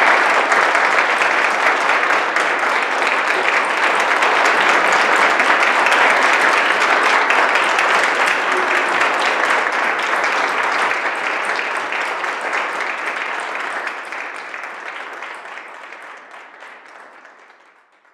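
Congregation applauding in a church sanctuary: a dense, steady clapping that dies away over the last few seconds.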